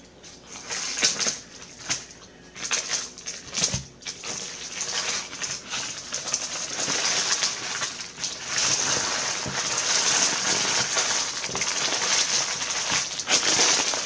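Paper sandwich wrapper crinkling and rustling as it is handled. It comes in short bursts for the first few seconds, then runs more continuously.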